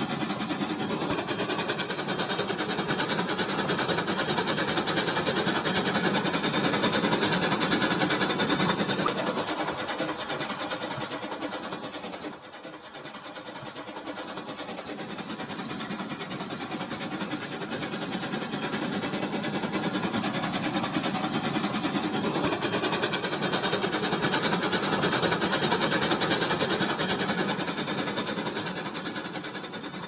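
Battery-powered toy train running on plastic track: a steady whirring and clattering from its small motor and wheels. It grows louder as the train nears, drops suddenly about twelve seconds in, then swells again and fades near the end.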